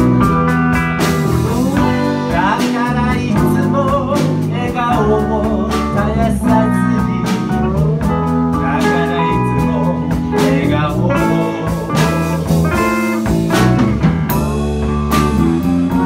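Live blues band playing: electric guitars, bass and drums, with a voice singing over them.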